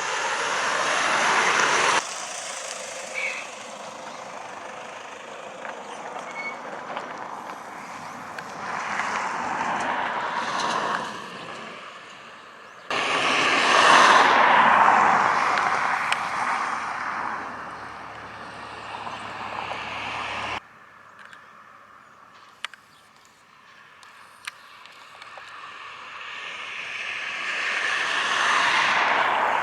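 Aircraft engine noise in several spliced clips, each swelling and fading as an aircraft passes, with abrupt cuts between them. The loudest pass comes just after a cut about 13 seconds in.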